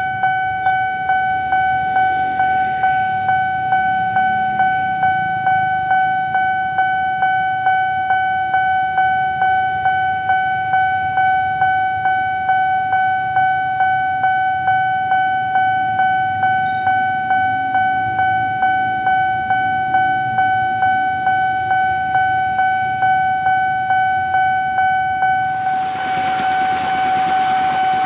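Level-crossing warning bell of an original Nippon Signal crossing, an electronic ding repeated steadily at about two strokes a second as the lights flash and the barriers are down. Near the end a rushing noise rises as a train comes through.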